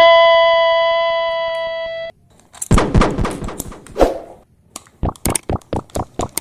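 A held electronic chime note fading out over the first two seconds, then a clatter of hard knocks and rattles, and near the end a quick run of sharp clicks, about four a second.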